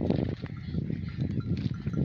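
Sheep bells clanking on a large grazing flock of sheep and lambs, a steady jumble of many bells at once.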